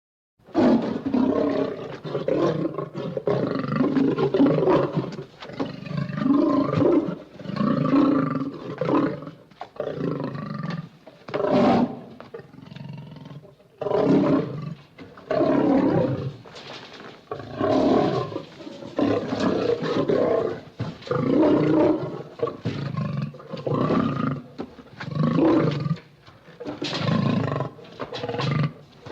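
Lion roar and growl sound effects played one after another, about a dozen loud calls each a second or two long with short gaps between them.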